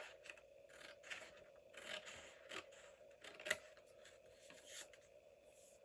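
Faint paper handling: scattered rustles, light scrapes and small clicks as washi tape strips and journal paper are picked up and laid onto a page, with one sharper click about three and a half seconds in.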